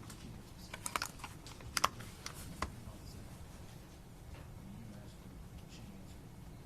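Light clicks and taps in two short clusters, about one and two seconds in, over a quiet room's steady hum.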